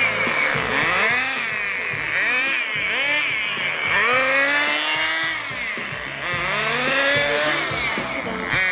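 Radio-controlled car's motor revving up and down over and over as the car accelerates and slows, its pitch sweeping in repeated rising and falling arcs.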